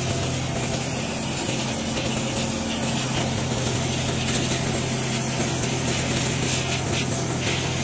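Sandblasting in a blast cabinet: a steady hiss of compressed air and abrasive grit from the blast gun striking small steel rifle parts, over a steady low machine hum.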